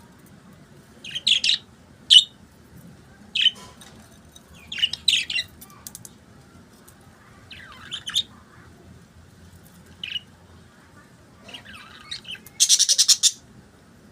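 Pet budgerigars chirping in short, scattered high calls, ending with a quick run of about eight sharp chirps near the end.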